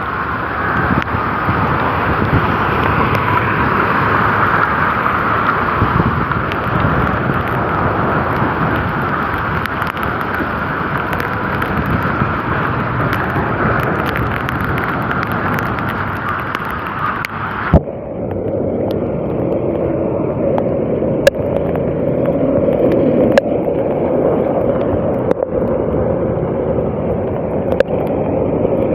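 Loud, steady rushing noise of a vehicle on the move in the rain. About 18 seconds in it changes abruptly to a lower, duller rush, and a few sharp knocks follow later.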